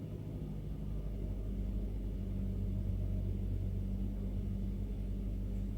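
Vehicle engine running steadily with a low hum.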